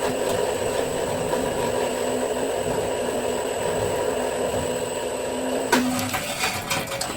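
Homemade motorized wire winder running steadily with a constant hum as it reels in 2/0 copper cable. Near the end there is a sharp knock, the motor hum stops, and a few clattering clicks follow.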